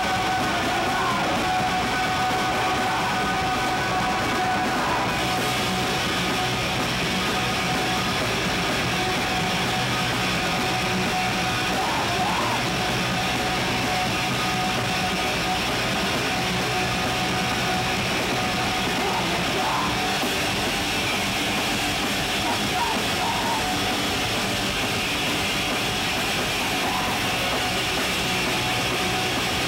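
Live band playing loud, distorted rock with electric guitar and drums, a singer yelling into a microphone now and then over the dense, unbroken din.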